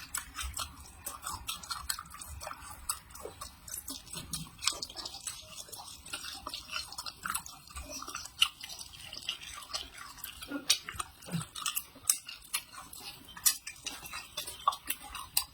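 Close-miked eating: irregular wet mouth clicks and crunchy chewing, several small snaps a second.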